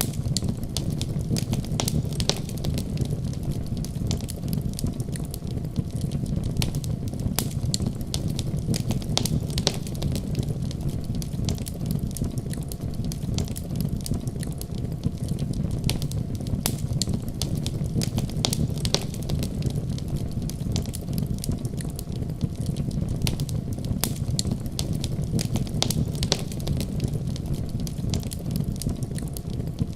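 Wood fire in a fireplace crackling, with frequent irregular pops and snaps from the burning logs over a steady low rumble.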